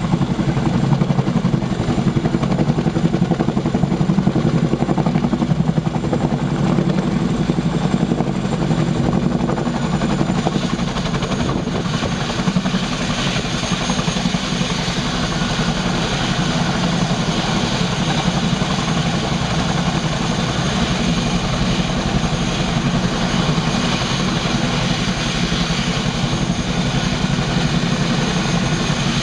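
Boeing Chinook HC4 tandem-rotor helicopter running on the ground, its two rotors turning with a fast, steady chop over the whine of its turbine engines. The high whine grows stronger about twelve seconds in.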